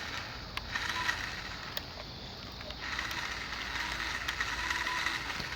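RC boat's small motor, out of the water, whirring faintly and spinning up and down in a few short bursts on throttle from the remote, with a few faint clicks.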